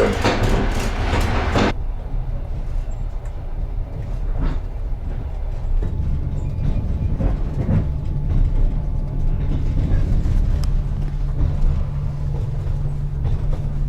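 Passenger train on the Trans-Siberian line rumbling steadily, with faint clicks of the wheels now and then.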